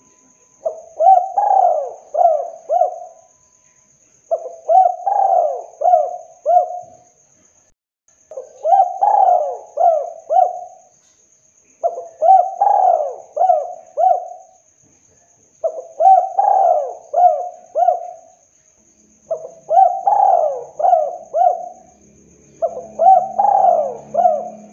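Spotted dove (tekukur) singing its 'kuk 2' song: seven repeated phrases of several clear coos, one about every three and a half seconds. A faint steady high-pitched tone runs underneath.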